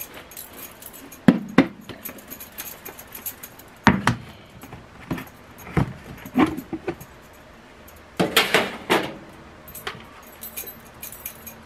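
Raw chicken strips being shaken in a lidded plastic container of flour breading: irregular knocks and rattles in bursts, the longest and loudest near the end, with metal bangle bracelets jingling on the shaking wrist.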